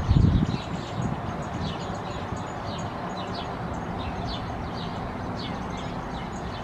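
American robin nestlings begging: a steady run of short, high, down-slurred chirps, several a second, over a constant background rumble. A low thump comes right at the start.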